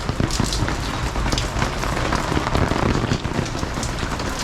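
Heavy rain falling on hard surfaces: a dense, steady hiss with many close drop impacts.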